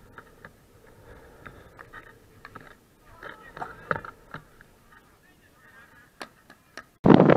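Field hockey sticks and ball clacking in sharp knocks, mixed with players' shouts, during a shot at goal and a goalkeeper save. About seven seconds in it switches abruptly to loud wind buffeting the microphone.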